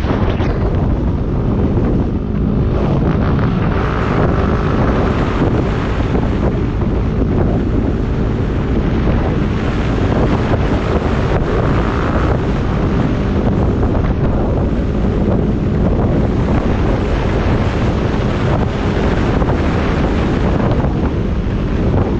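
Steady wind buffeting on the microphone of a camera mounted on a Yamaha WR250X motorcycle riding at road speed, with the bike's single-cylinder engine running underneath.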